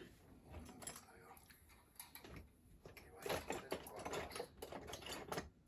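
Faint small clicks and scrapes of a screwdriver working a screw out of a diecast model van's base, growing busier about three seconds in.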